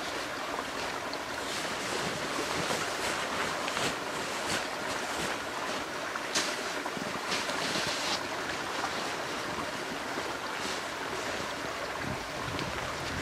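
Steady rushing wind noise, with brief rustles of clothing and snow as a person shifts about and gets to his feet. There are a couple of louder rustles a little past halfway.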